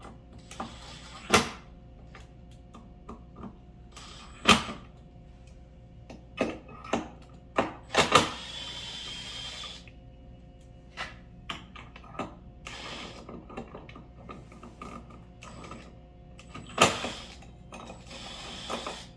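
Aluminum level holder and bracket being handled and fitted onto aluminum tool-box rails: a handful of sharp metal clacks, with lighter taps and clinks between them and a few short stretches of scraping or ratcheting. A faint steady hum sits underneath.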